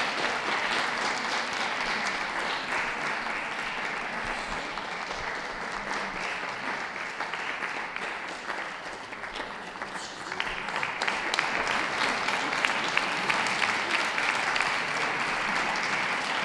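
Audience applauding steadily, the clapping swelling louder about ten seconds in.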